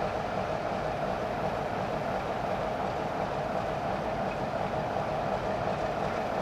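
A train running: a steady, unbroken rumbling noise that sets in abruptly just before and holds the same throughout.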